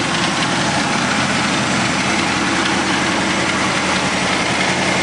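1971 Pontiac Trans Am's 455 H.O. V8 idling steadily, with the engine knock it is known to have running through the idle.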